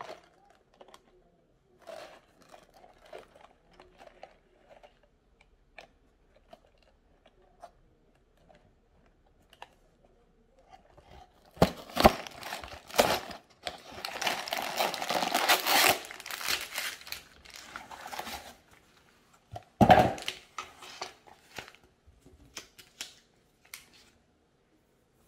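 A LEGO set's cardboard box being opened by hand. About halfway through, the perforated flap pops and tears open and the cardboard rips and scrapes for a few seconds. A thud follows as the contents land on the wooden table, then the plastic parts bags crinkle and rustle lightly.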